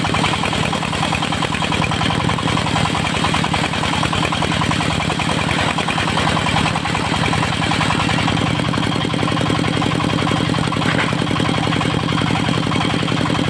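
Engine running steadily at an even speed, with a constant rapid pulsing.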